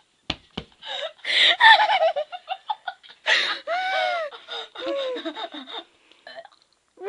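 Two teenage girls laughing hard: rapid giggling runs and high, rising-and-falling laughs, after two sharp clicks near the start.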